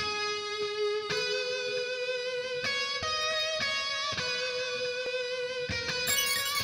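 Instrumental hip-hop beat opening with a melody of long held notes that step to a new pitch every second or two, over faint percussive ticks.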